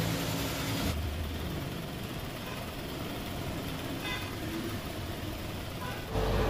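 Metal lathe running, then cutting out about a second in, leaving a quieter steady background with a few faint ticks. Near the end the lathe starts up again with a steady hum.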